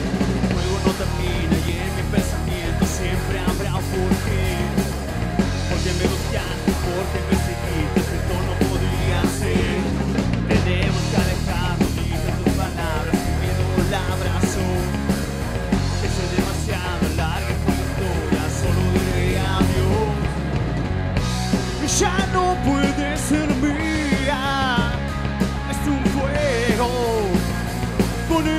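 Rock band playing live, melodic punk and heavy metal in style: drum kit, electric guitar and electric bass. A male lead vocal comes in about two-thirds of the way through.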